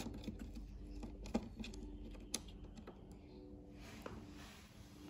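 A few light, scattered clicks and ticks as a small screw is turned down by hand with a slim driver through rubber into the electric unicycle's plastic shell, with a faint steady hum underneath.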